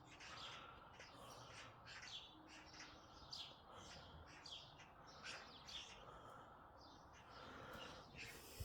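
Faint birdsong outdoors: many short chirps and tweets from small birds over otherwise near silence.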